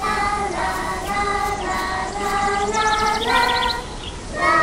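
Gentle music with a sung melody of held notes, and a quick run of bright, twinkling high notes about three seconds in.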